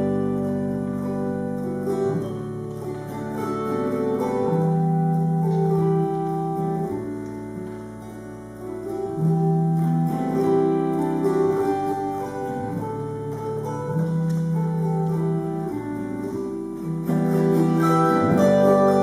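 Autoharp played solo: strummed chords ring on and change every second or two. It eases to a softer passage about eight seconds in and swells louder near the end.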